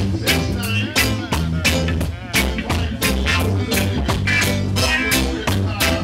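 Live band playing together with a steady beat: drum kit, bass guitar, electric guitar and Korg keyboard.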